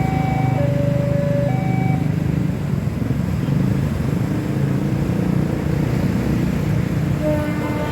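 Railway level-crossing warning alarm sounding an alternating two-note chime, which stops about two seconds in, over a steady rumble of road traffic with cars and motorcycles.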